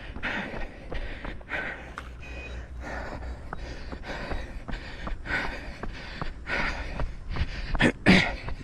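A runner's heavy breathing, hard gasping breaths coming about every two-thirds of a second, loudest near the end, with footfalls on pavement. The breathing is that of hard exertion, heart rate near 170.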